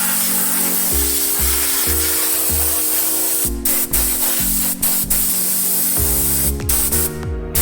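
Aerosol contact cleaner spraying onto relay contacts: a long continuous hiss, then shorter bursts with brief breaks in the second half. Background music plays underneath.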